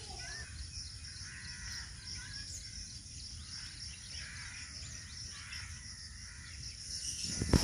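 Quiet outdoor ambience: faint bird calls and chirps now and then over steady low background noise, with a faint steady high-pitched hiss.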